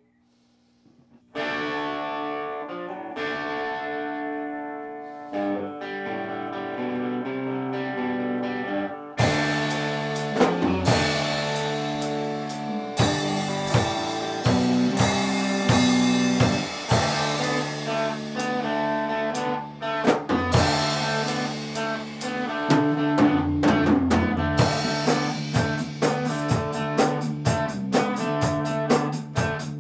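Rock band playing an instrumental intro. After a moment of silence, electric guitar chords ring out, and about nine seconds in the drums and bass come in with a steady driving beat.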